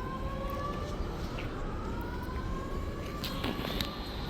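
Building fire alarm sounding a whoop tone: a string of rising pitch sweeps, each lasting a second or two, from several speakers slightly out of step with one another.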